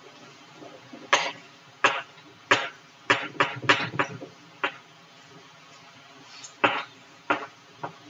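Chalk knocking and scraping on a blackboard as an equation is written: a string of short, sharp taps, bunched in the first half and again near the end.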